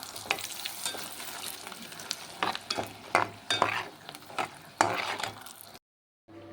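Chillies sizzling as they fry in hot oil in a pan, stirred with a spatula that scrapes and clicks against the pan at irregular moments. The sound drops out completely for about half a second near the end.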